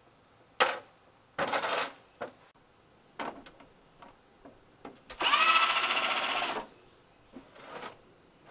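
Cordless drill-driver working at the screws in the back of a CRT television. It gives a short run about a second and a half in, then a longer run of about a second and a half about five seconds in that spins up and holds steady. Clicks and small knocks of the bit and plastic come in between.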